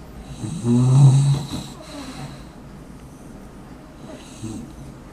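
A sleeping pet snoring: one loud snore about a second in, then softer snoring breaths near the middle and near the end.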